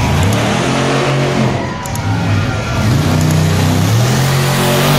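Monster truck engine revving hard, its pitch climbing and dropping several times in a row.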